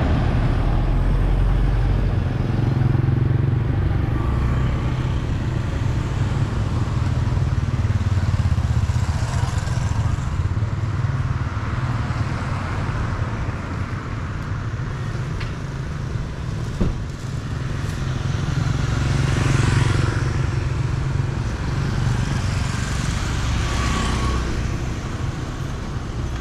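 Street traffic: a steady low rumble of engines, with vehicles passing that swell up and fade away several times, and a single short click about two-thirds of the way in.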